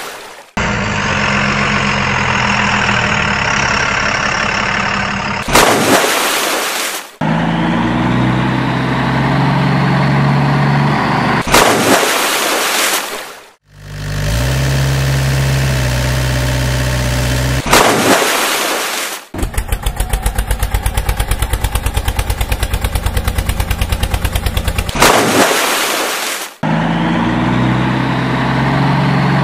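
Truck engine sound effects running and revving in stretches of a few seconds, broken by short loud bursts of noise. In the middle comes a fast, even rattle of rapid pulses lasting about five seconds.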